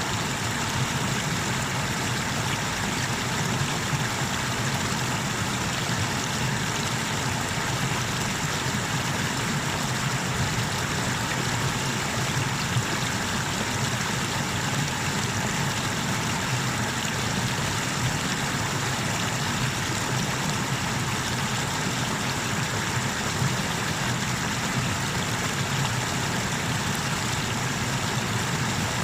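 Steady, unbroken rush of water spilling over the small cascades of the Tanew river.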